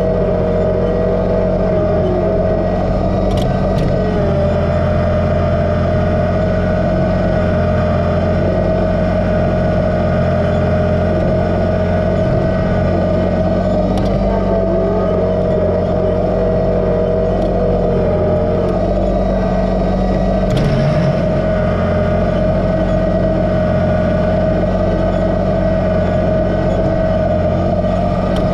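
Kubota BX2380 sub-compact tractor's three-cylinder diesel running steadily, with a steady high whine over it and a short knock about twenty seconds in.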